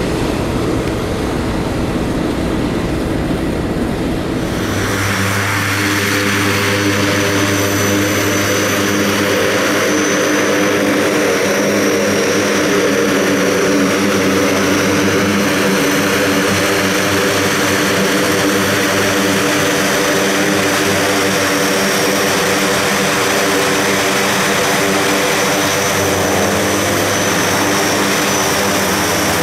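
Turboprop aircraft engines running: a loud rush of noise for the first few seconds, then from about five seconds in a steady hum of propeller tones under a high turbine whine. The propeller tones bend in pitch near the end.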